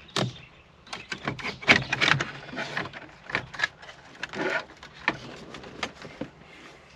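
Irregular clicks, knocks and rattles of hand tools and plastic dashboard trim being handled while the last bolt of the radio unit is taken out.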